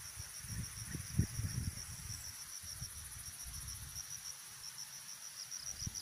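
Insects calling in a steady, high, rapidly pulsing trill, over low bumps and rumble of handling noise on the microphone, the loudest bump about a second in.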